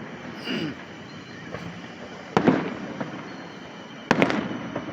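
Fireworks shells bursting in a public display: two loud booms about a second and a half apart, each trailing off in echo, with a smaller pop before them.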